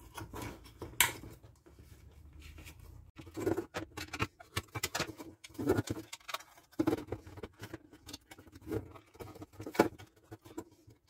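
Rapid, irregular clicks, taps and rustles of a plastic electrical gang box being handled and power-cord wires being pushed into it, sped up to triple speed.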